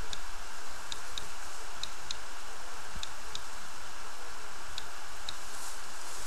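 Short sharp ticks from the keys of a Pulsar2 telescope-mount hand controller being pressed to step through its menus, about eight of them at uneven spacing, many in close pairs, over a steady hiss.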